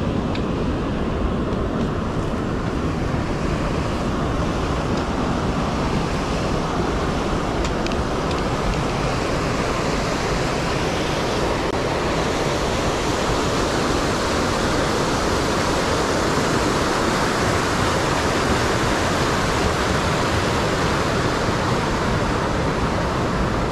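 Steady rushing of a fast river or creek, an even, unbroken roar of water.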